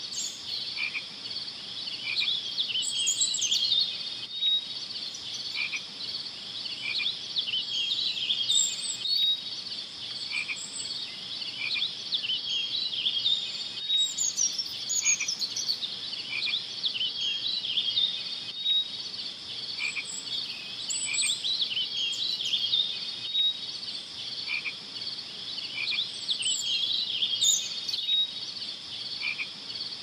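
Night-time frog chorus: many short calls repeating over a steady high-pitched trill, with a few higher falling calls now and then.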